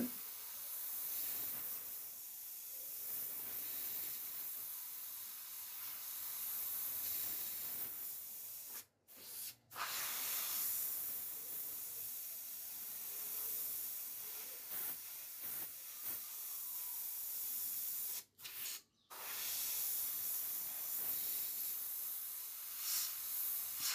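Airbrush spraying paint in a steady hiss, cutting out briefly a few times as the trigger is released.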